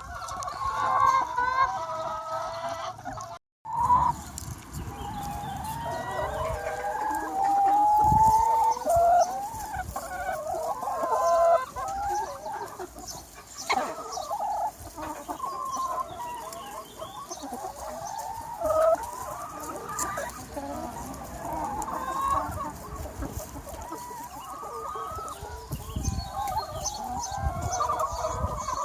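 A large free-range chicken flock clucking and calling over one another, many hens at once, with a rooster crowing among them. The sound cuts out briefly about three and a half seconds in.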